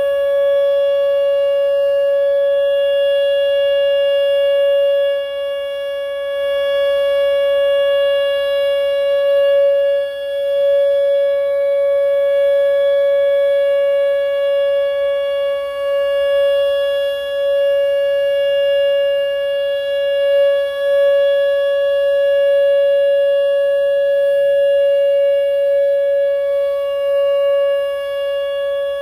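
Whelen WPS 2910 electronic outdoor warning siren sounding a steady alert tone at one held pitch, the steady signal of a monthly siren test. Its loudness dips briefly now and then.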